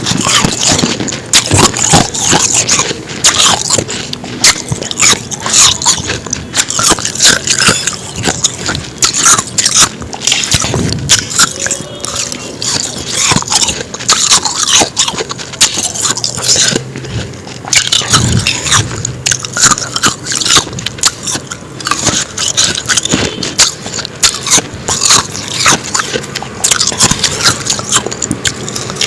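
Close-up biting and chewing of powdery frost ice: continuous dense crunching and crackling.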